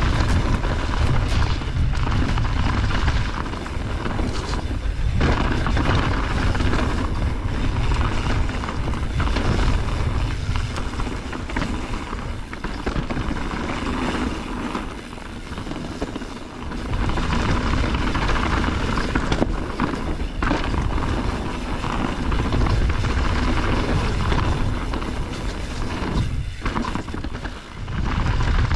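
Mountain bike descending a dirt trail: a steady low rush of wind on the camera microphone with tyres rolling and rattling over the ground. The noise eases off briefly about halfway through and again near the end.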